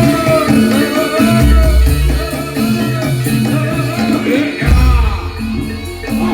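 Loud music accompanying a barongan performance: a wavering sung melody over a repeating drum and bass beat.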